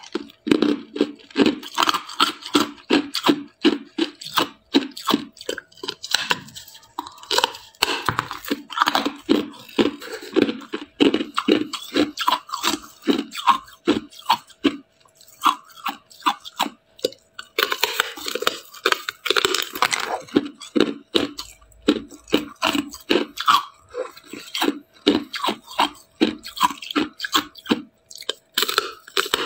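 Teeth biting and chewing through a hard slab of clear ice: a quick, uneven run of sharp, close crunches, several a second, with a denser stretch of crunching partway through.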